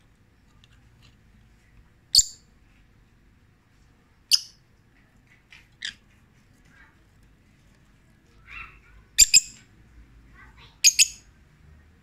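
Rosy-faced lovebirds giving short, shrill chirps every couple of seconds, the last few coming in quick pairs.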